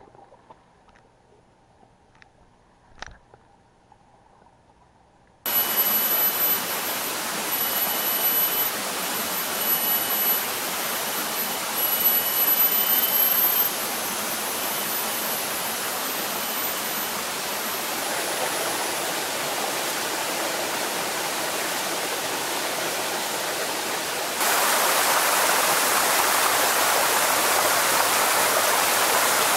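Rushing river water, a loud steady hiss that starts suddenly about five seconds in, after a few nearly quiet seconds with faint clicks. Through the first half, high thin tones come and go over the water. The water gets louder and brighter near the end.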